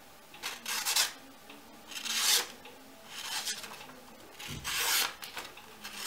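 Leatherman Skeletool's knife blade slicing through a hand-held sheet of paper four times, each cut a short scratchy swish. The edge is sharp and cuts the paper cleanly.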